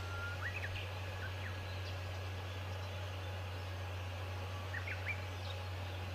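Short bird chirps in two quick clusters, about half a second in and again around five seconds in, over a steady low hum and outdoor background noise.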